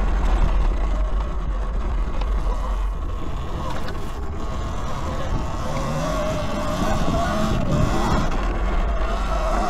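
Eride Pro SS electric dirt bike riding a trail: wind rumbling on the camera microphone and the electric motor whining, its pitch wavering up and down with the throttle from about halfway through.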